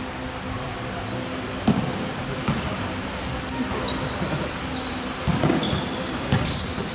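Basketball bouncing on the court during play, a few separate knocks, with sneakers squeaking on the court floor from about halfway through.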